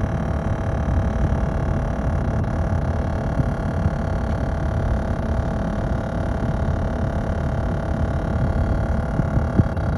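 The unexplained weird sound from a 2016 Honda Odyssey minivan: a steady low rumble with a constant whine over it, unchanging throughout.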